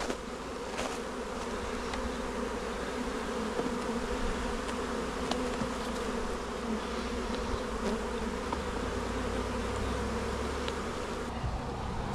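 Many honeybees from a freshly installed package buzzing around an open hive: a steady, dense hum, with a few faint clicks.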